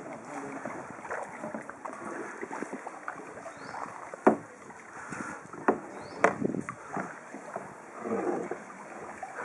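Kayak paddles dipping and splashing in calm creek water. A few sharp knocks come a little past the middle.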